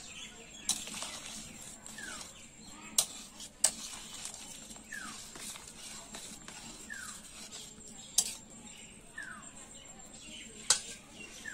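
Metal spoon stirring a thick potato-and-fish curry in a steel bowl, clinking sharply against the bowl about five times. A short falling chirp repeats about every two seconds in the background.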